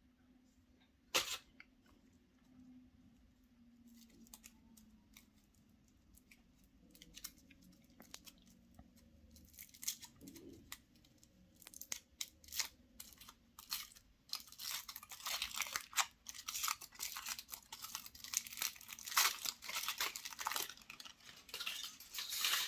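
Foil wrapper of a chocolate surprise egg being torn and crinkled by hand: one sharp crackle about a second in, scattered crinkles after it, then dense, continuous crinkling over the last eight seconds that cuts off suddenly.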